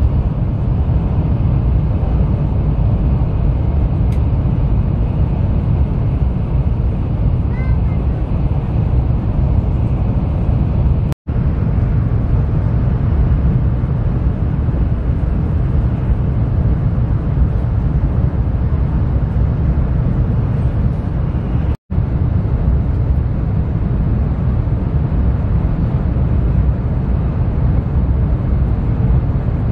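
Steady low rumble of an N700-series Shinkansen running at high speed, heard from inside the passenger cabin. The sound cuts out for an instant about 11 and 22 seconds in.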